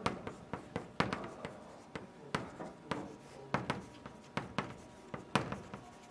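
Chalk writing on a blackboard: irregular sharp taps and short scrapes, two or three a second, as characters are written stroke by stroke.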